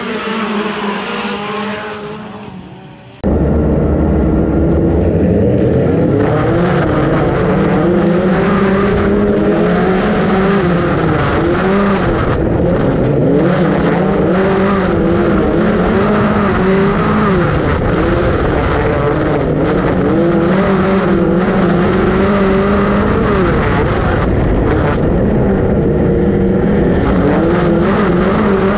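Dirt-track race cars going by, fading over the first three seconds. It then cuts suddenly to a SpeedSTR's engine heard loud from inside the open cockpit, running hard in a race, its pitch rising and falling again and again as the throttle comes on and off.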